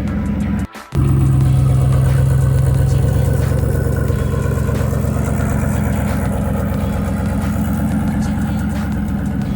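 2002 Dodge Ram 1500 pickup's engine idling steadily, with a short break in the sound just under a second in.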